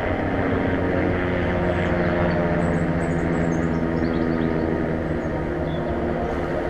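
Propeller aircraft flying overhead, a steady drone, with a few short high chirps about three seconds in.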